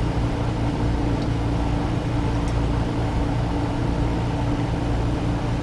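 Steady low machine hum, a few unchanging tones over a low rumble, from a motor running in the workshop.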